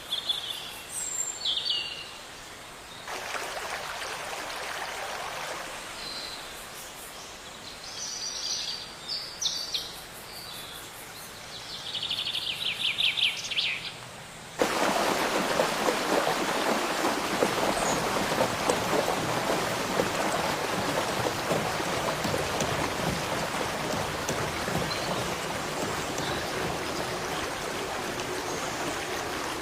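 Small birds chirping in short calls and a quick trill over a light hiss, then, after an abrupt cut about halfway through, a steady rush of running water.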